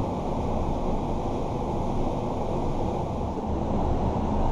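Steady rushing of high water pouring through a concrete overflow culvert into the pool below, an even low-pitched wash of water noise.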